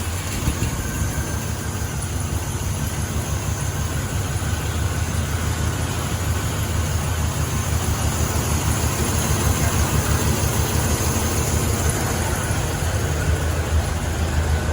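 Pontiac 400 V8 engine of a 1969 GTO idling steadily.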